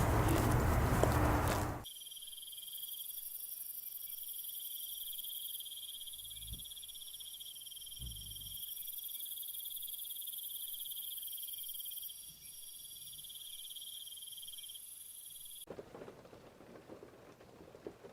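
Crickets chirring, a steady high shrill lasting most of the clip. It follows the abrupt end of a louder noisy sound about two seconds in, and near the end it gives way to a soft, even hiss.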